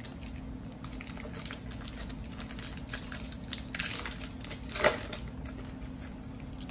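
Foil wrapper of a Donruss Optic basketball card pack crinkling and tearing as it is opened by hand: scattered light rustles and crackles, with one sharp, louder crackle about five seconds in.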